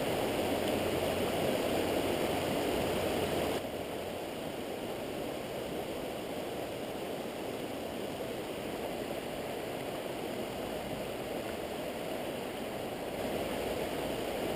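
Mountain stream rushing over stones and through riffles, a steady hiss of flowing water that eases a little about four seconds in.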